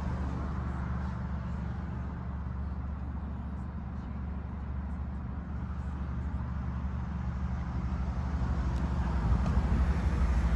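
Alfa Romeo Stelvio Quadrifoglio's 2.9-litre twin-turbo V6 idling with a steady low hum, growing louder near the end.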